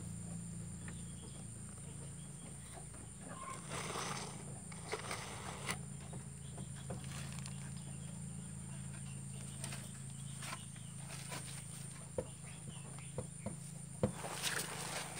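Scattered sharp knocks and rustles from a bucket being handled, loudest near the end, over a steady low hum and a steady high-pitched drone.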